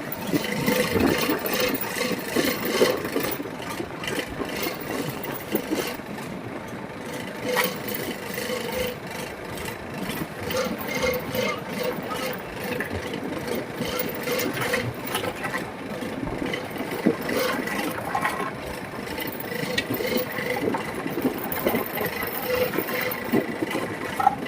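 Fishing boat's engine running steadily, with irregular knocks and rattles throughout.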